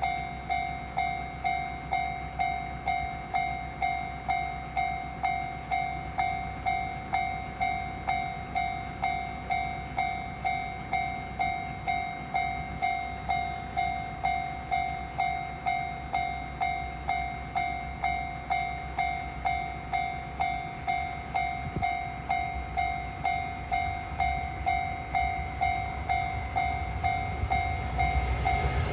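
Japanese railway level-crossing alarm ringing: one clear tone repeated steadily at a little under two strikes a second, each strike fading quickly, warning that a train is coming.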